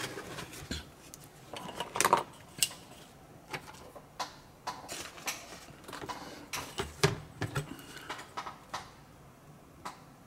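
Irregular light taps, clicks and short scrapes of stiff card and small tools being handled and set down on a cutting mat.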